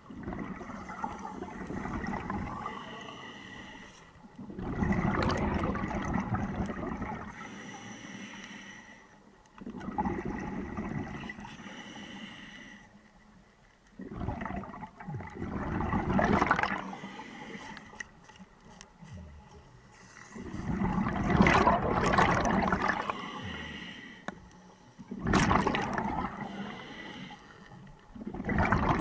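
Scuba diver breathing through a regulator underwater. A quieter hissing inhale is followed by a loud rush of exhaled bubbles, in a slow cycle repeated about six times.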